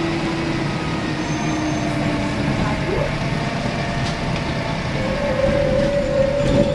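Scania K113CRB coach running under way, heard from inside the passenger cabin: a steady low drivetrain rumble with a whine on top that jumps sharply up in pitch about three seconds in and steps again about two seconds later.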